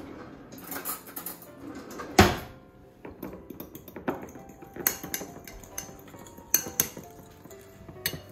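A fork clinking and scraping against a glass bowl, whisking a runny marinade, in quick irregular clicks from about three seconds in. Just after two seconds there is a single loud knock.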